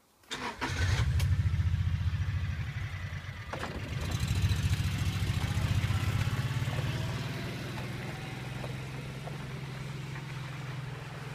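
Motor vehicle engine running with a low, pulsing rumble, which comes in sharply near the start, stays loud for several seconds, then settles to a steadier, quieter run.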